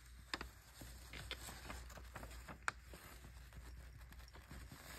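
Faint rustling of a folded sheet of lined notebook paper with scattered light taps and ticks as crushed eyeshadow powder is tipped off it into a small metal pan; the sharpest tick comes a little past halfway.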